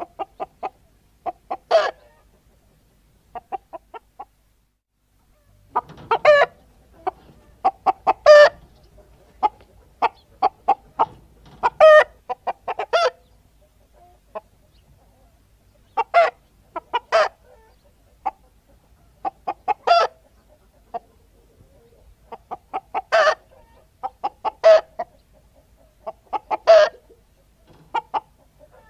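Hens cackling: repeated runs of quick clucks, each ending in a louder drawn-out note, coming again every few seconds.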